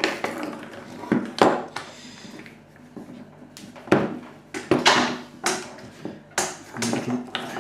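Irregular sharp clicks and knocks of hands and a tool working the plastic and metal housing of a Renault Scenic electric parking brake unit while a cable end is unscrewed from it.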